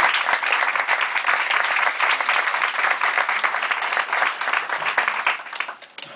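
Audience applauding after a poetry reading, the clapping already under way and dying away near the end.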